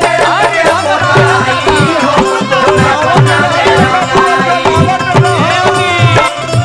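Instrumental break in a Bhojpuri Holi song: a lead melody full of sliding notes over a steady, busy drum beat.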